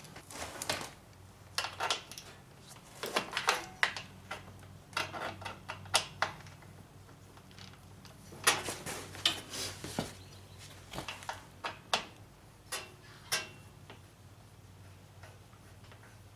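Hand tools working on a lawn mower's metal parts: irregular sharp metallic clicks, clinks and scrapes, in clusters, over a faint steady low hum.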